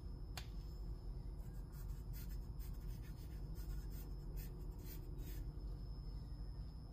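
Willow charcoal stick scraping over sketchbook paper in a run of short, quick strokes, with a sharp tick about half a second in.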